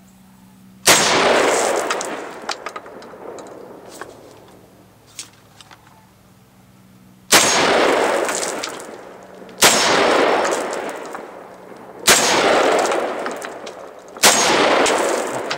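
Saiga 12-gauge semi-automatic shotgun firing five shots: one about a second in, then after a pause of about six seconds four more roughly two seconds apart. Each report rings off over a second or two.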